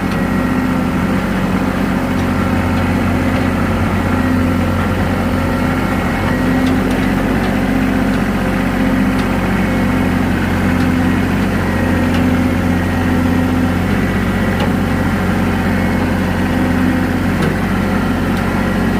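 Tractor engine running steadily at constant speed while towing a skid steer by chain.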